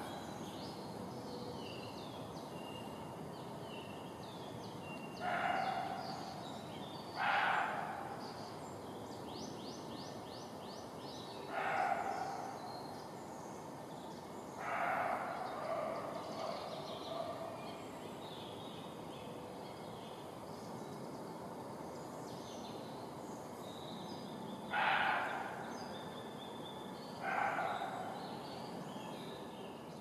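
A wild animal gives six short, hoarse calls, each under a second apart from one longer call about halfway through, spaced a few seconds apart over a steady hiss. They are the calls the listener guesses may be territorial or mating calls in spring. Faint bird chirps come between them.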